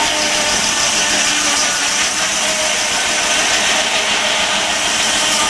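A Frick sawmill and the engine that drives it running steadily, a constant mechanical din with a high, even whine over it.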